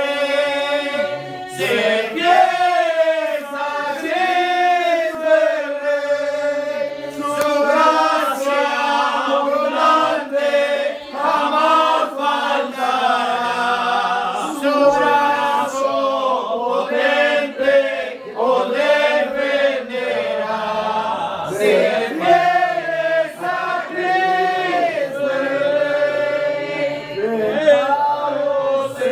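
A congregation singing a hymn together in Spanish, with sustained sung notes throughout.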